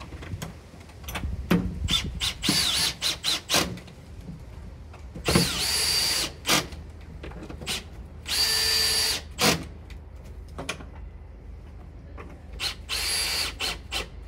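Power drill-driver driving screws to fix a sash window's bead back in place. There are a few short blips of the motor about two seconds in, then three longer runs of about a second each, each with a steady whine that rises as the motor spins up.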